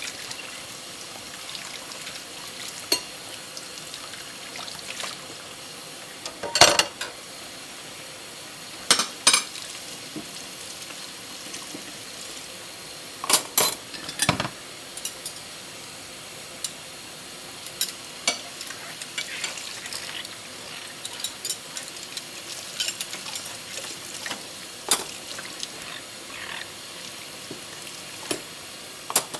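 Dishes and cutlery clinking and knocking against each other now and then as they are washed by hand, over a steady hiss.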